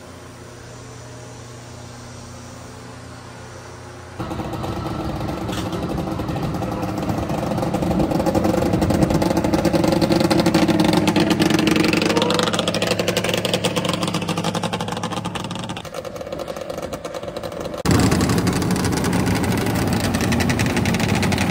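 A few seconds of steady low hum, then, from about four seconds in, vintage snowmobile engines running, idling and revving. The level jumps up suddenly at about four seconds and again near the end.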